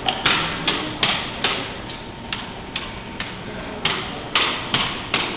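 A steady run of sharp knocks, a little more than two a second, each echoing off the hard walls and floor. The knocks are a rifle drill team working its drill rifles, stocks and butts striking hands and the tile floor in time.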